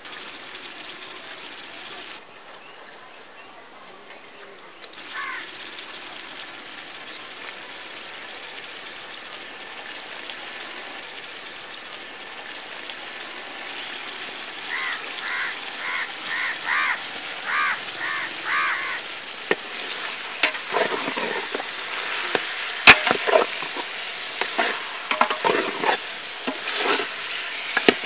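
Pork pieces, potato and shallots in oil sizzling in a large steel pot over a wood fire, with a metal ladle stirring and scraping against the pot from about two-thirds of the way in, giving sharp clanks and scrapes. A run of about eight short, evenly spaced chirps comes midway.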